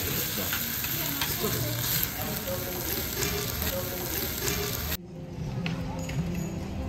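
A metal spoon stirring and scraping rice in a hot stone dolsot bibimbap bowl, with sizzling from the heated stone and many small clicks of the spoon against the bowl. It cuts off suddenly about five seconds in, giving way to a quieter background.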